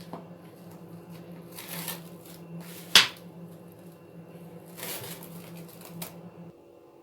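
Kitchen handling sounds: a few brief rustling swishes and one sharp clink or knock about three seconds in, over a steady low hum that cuts out near the end.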